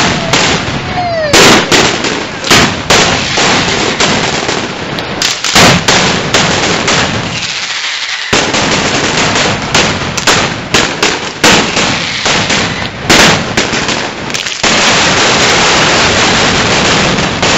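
Firecrackers going off in quick, irregular succession, many sharp bangs close together, with a brief lull about eight seconds in.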